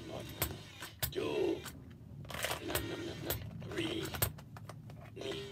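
Count 'n Crunch Cookie Monster toy in action: repeated clicks and creaks from its motorised mouth, with a couple of short bursts of its recorded voice.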